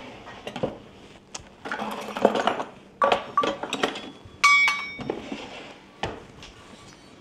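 Metal measuring cup scooping flour from a stainless steel mixing bowl: soft scraping rustles broken by metal-on-metal knocks and clinks, with one ringing clink about four and a half seconds in.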